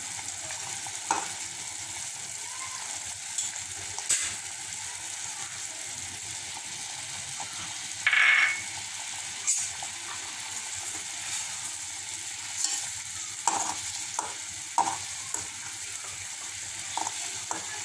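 Chopped onions sizzling steadily in hot oil in a metal pot, with a metal spatula scraping and clinking against the pot now and then as they are stirred, most often near the end.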